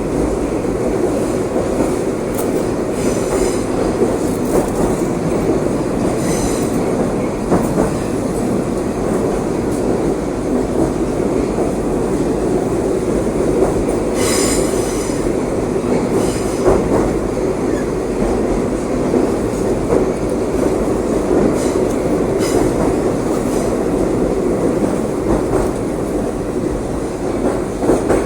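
Metro train running between stations: a steady rumble of wheels and running gear on the rails, with a few brief high wheel squeals, the strongest about halfway through.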